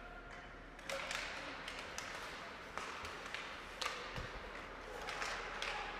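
Irregular sharp clacks and knocks of hockey sticks and puck during ice hockey play, about a dozen over a few seconds, over a steady rink hiss.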